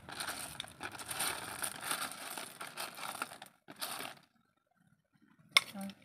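Plastic bag crinkling and rustling as seashells are handled in it, then a single sharp clink near the end.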